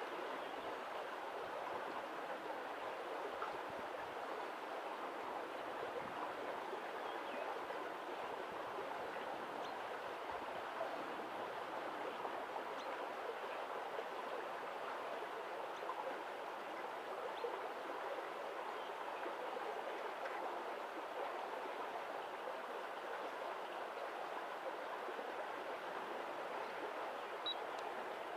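Steady rushing of running water from a stream, even and unbroken.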